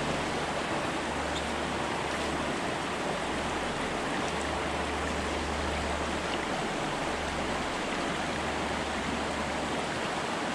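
Shallow stream water flowing and splashing steadily over a pebble bed, with a low rumble that comes and goes beneath it.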